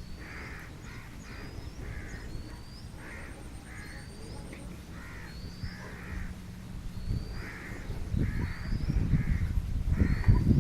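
Crows cawing repeatedly in short runs, with a thin, high upward-sliding call repeating about once a second. A low rumble grows louder near the end.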